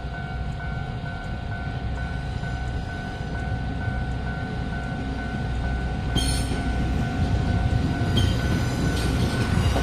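Level crossing alarm ringing in an evenly repeating tone while a diesel railcar approaches, its rumble growing louder, with a brief high screech about six seconds in.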